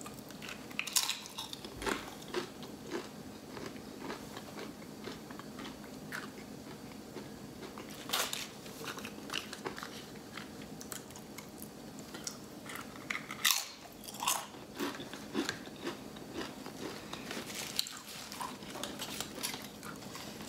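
Tortilla chips being bitten and chewed, with scattered sharp crunches, the loudest about a second in, about eight seconds in and again at about thirteen and a half. Later come the handling sounds of a plastic dip cup and of the burrito's foil wrapper.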